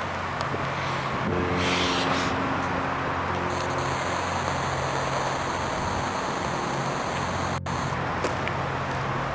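Steady outdoor traffic noise with a low engine-like hum running under it. The sound breaks off for a split second about three-quarters of the way through.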